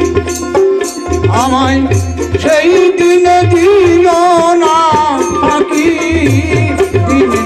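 Baul folk music between sung lines: tabla playing a steady rhythm under sustained harmonium chords and plucked dotara, with a bamboo flute carrying a wavering melody from about a second in.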